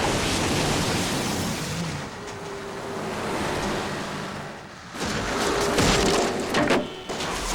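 Action-film sound effects: a dense rushing rumble that fades away a little before five seconds in, followed by a cluster of loud bangs and thuds.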